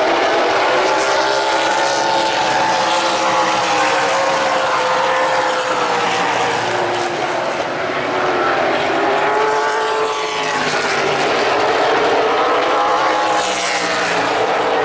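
Several stock car engines running together as the pack laps the oval, their pitches rising and falling as the cars pass.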